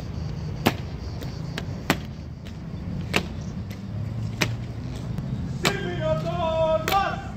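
Evzones' hobnailed tsarouchia clogs striking the stone pavement in slow, evenly spaced stamps, about one every 1.2 seconds, over a steady rumble of city traffic. A person's voice is heard briefly near the end.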